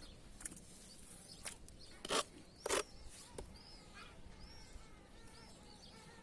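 Small birds chirping in the background with short, repeated arching calls. Two brief, sharp noises about two and three seconds in are the loudest sounds.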